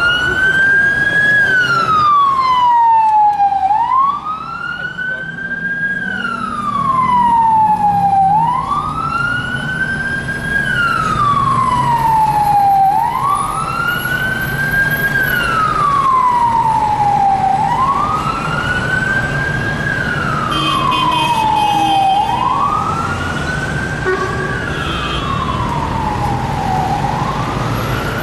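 Police car siren on a Ford Focus Estate response car sounding a slow wail: each cycle climbs in about a second and falls away over two to three seconds, repeating about every four and a half seconds. Low city traffic rumble runs underneath, and the siren grows somewhat fainter over the later cycles.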